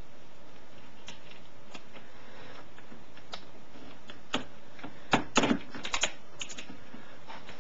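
Scattered sharp clicks and taps, bunched into a quick cluster about five to six seconds in, from handling and pushing a thick amplifier power wire and its protective plastic sleeve into place against parts in a car's engine bay.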